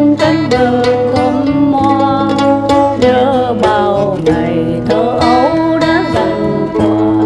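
Mandolin and acoustic guitar playing an old, slow Vietnamese song together, the mandolin carrying the melody over the guitar's accompaniment.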